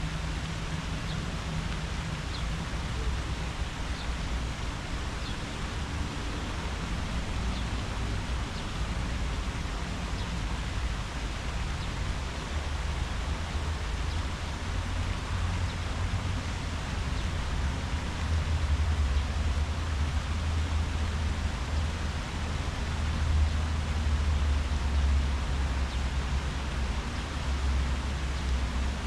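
Outdoor ambience: a steady hiss of leaves rustling in the wind, with a low rumble that grows louder about halfway through and a few faint high chirps near the start.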